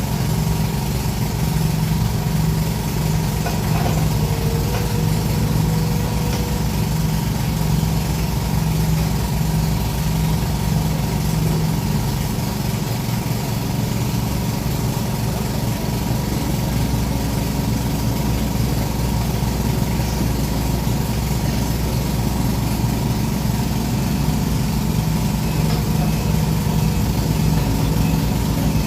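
Diesel engine of a Sumitomo SH210-5 excavator running steadily. Its tone changes about twelve seconds in and goes back to the earlier tone near the end.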